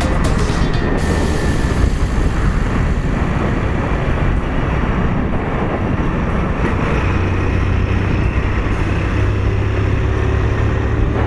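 Motorcycle running at road speed, its engine hum under steady wind rumble on the microphone.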